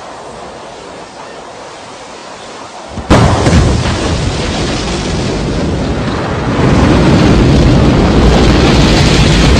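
A steady hiss, then about three seconds in a sudden loud burst of rocket-engine roar at ignition, a dense deep rumble that grows louder again about six and a half seconds in as the rocket lifts off.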